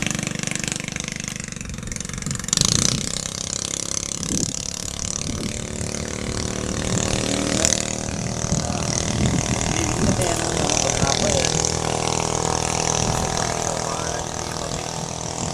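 Racing bangka's small gasoline engine, fitted with a 28mm UCR carburetor on test, running steadily at speed across the water.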